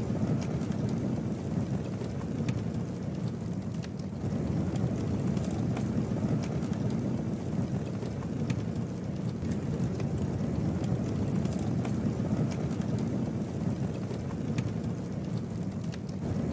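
Wood campfire burning: a steady low rumble of the flames with scattered sharp crackles and pops from the burning wood.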